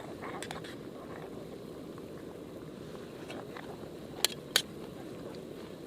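Steady low outdoor rush with a few faint ticks early on, then two sharp clicks about a third of a second apart around four seconds in.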